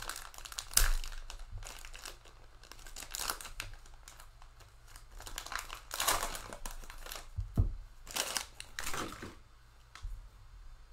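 Cellophane wrapper of a Panini Select cello pack of football cards being torn open and crinkled by hand, in a run of separate crackling bursts.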